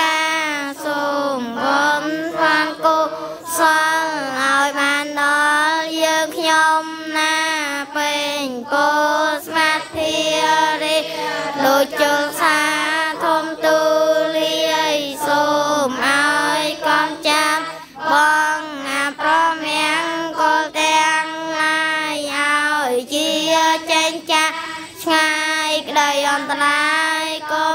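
Children chanting a Buddhist devotional recitation in unison, a steady singsong that runs in long held phrases with short breaks for breath.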